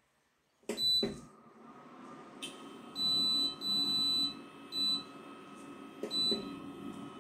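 Portable induction cooktop's control panel beeping as it is switched on and set: a short beep about a second in, two longer beeps around three and four seconds, then two short ones. Under them, the cooktop's cooling fan whirs steadily with a thin high whine, starting with the first beep.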